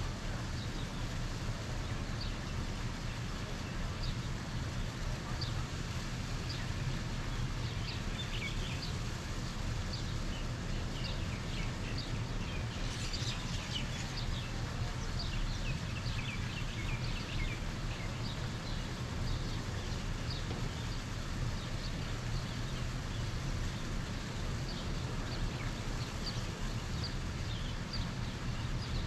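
Birds chirping over a steady low outdoor rumble, with many short high chirps, busiest around the middle.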